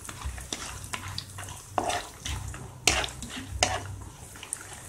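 Wooden spatula stirring cashews, almonds and raisins in hot ghee in a nonstick kadai: irregular scrapes and light knocks of the nuts against the pan over a light sizzle of the ghee on a low flame.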